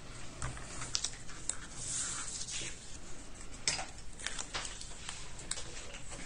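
Paper and craft supplies handled on a table: scattered light taps and clicks, with a soft rustle of paper about two seconds in.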